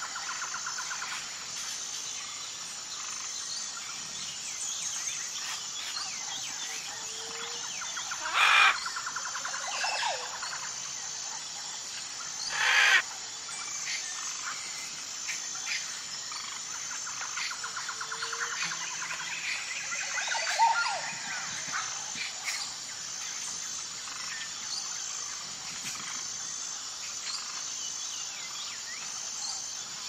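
Rainforest ambience: assorted birds calling and chirping over a steady high insect chorus, with two loud, harsh calls about 8 and 13 seconds in.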